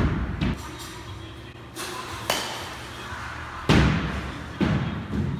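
A youth baseball bat with a Mizuno Covert two-piece alloy barrel hits a baseball, loudest about three-quarters of the way through, followed by duller thuds of the ball striking the batting-cage netting and backstop. Shorter knocks near the start and a sharp click about halfway belong to the same round of hitting.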